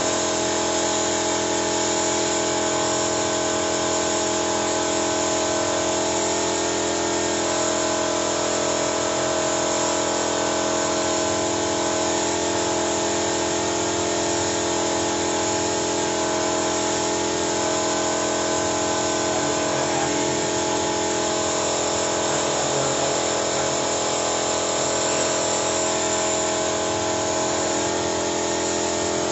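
Machinery running steadily: a continuous whine over a hum, unchanging throughout.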